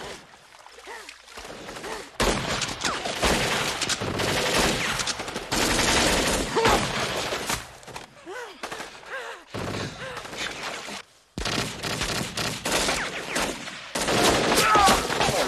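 Rapid gunfire from several guns firing together in a movie soundtrack, starting about two seconds in as long, loud volleys that break off suddenly twice and resume.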